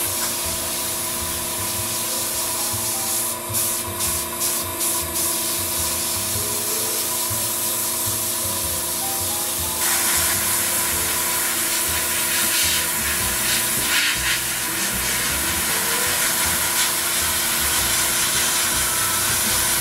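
Paasche H airbrush hissing as it sprays thinned ink, over the steady hum of an Iwata Smart Jet air compressor. The spray breaks off briefly a few times about three to five seconds in, and the hiss gets louder about ten seconds in.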